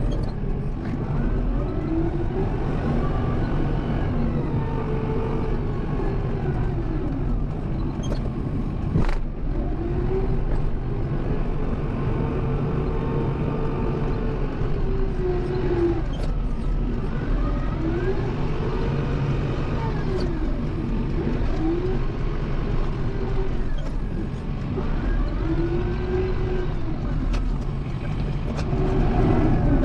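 Kubota M7060 tractor's diesel engine running under load while pushing snow, its pitch rising and falling every few seconds as the revs go up and down. A sharp click comes about nine seconds in.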